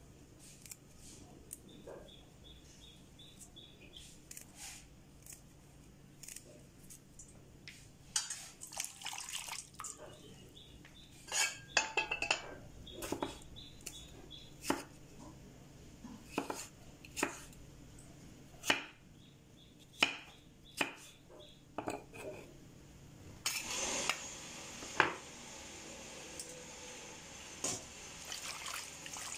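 Knife knocking sharply on a wooden chopping board as a tomato is sliced, in separate strokes with a few clustered ones. Near the end, water sloshes and splashes as moringa leaves are washed by hand in a metal pot, with the odd knock on the pot.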